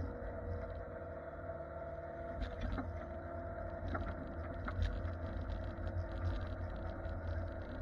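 An engine running steadily at a constant speed, with scattered clicks and knocks over it.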